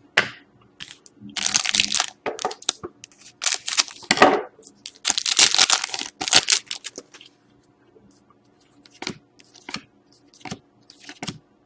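Foil wrapper of a hockey card pack being torn open and crinkled, in several noisy rips over the first seven seconds. Then come light clicks and rustles of cards being handled.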